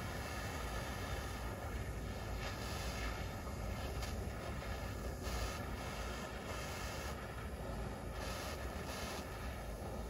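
Bernzomatic MAP-gas pencil torch burning with a steady hiss, its flame played over fiberglass exhaust wrap to burn off the loose fibers.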